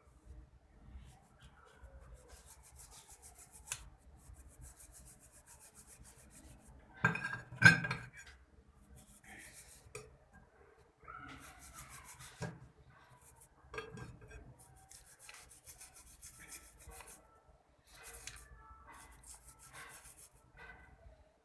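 A carbon-fouled motorcycle spark plug being rubbed and scraped clean in a small bowl of petrol, in repeated scratchy, rasping strokes. A loud clatter of the plug and metal knocking against the bowl comes about seven to eight seconds in.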